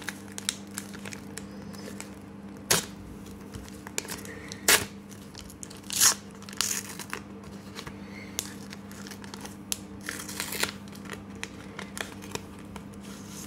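A Pokémon trading card booster pack being torn open by hand, its wrapper tearing and crinkling in sharp crackles, loudest about three, five and six seconds in, with a longer crinkle near ten seconds. A faint steady hum runs underneath.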